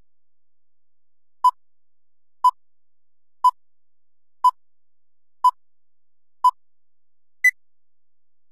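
Electronic beep tones: six short beeps at one pitch, a second apart, followed by a seventh short beep about an octave higher, like a countdown.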